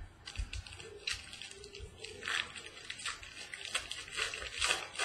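Foil-wrapped baseball card packs and cards being handled, with rustling and crinkling in irregular bursts.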